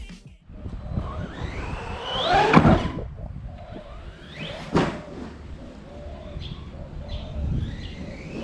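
1/7-scale CEN Reeper RC monster truck, its Leopard 4092 1480KV brushless motor on 6S whining up in pitch twice as it accelerates, with a sharp thump about five seconds in as the truck lands. Faint bird chirps follow.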